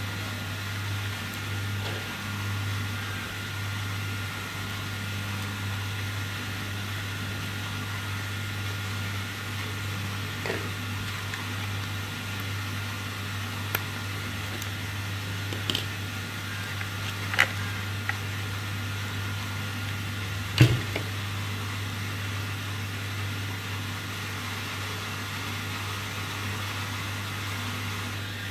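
A steady low hum with a faint high whine runs throughout. Over it come a handful of scattered small plastic clicks and knocks as a toy RC excavator's battery cover is opened and its battery handled, the loudest about two thirds of the way in.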